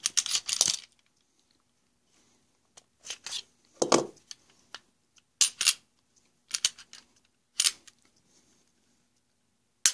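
Glock 42 .380 pistol being handled for field-stripping: a series of sharp metallic clicks and clacks from its slide and action, in small groups with short pauses between.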